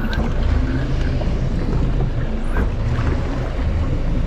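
Boat engine running with a steady low rumble, with wind noise on the microphone.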